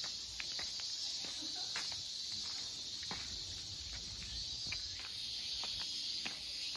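Steady high-pitched insect chorus, with scattered light taps of footsteps.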